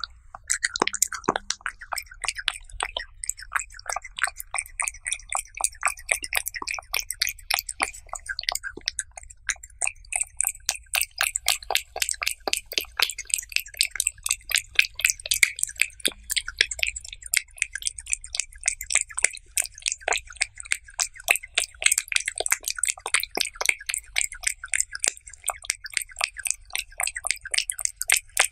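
Cat chewing raw beef slices, close-miked: a steady run of wet clicks and smacks, several a second.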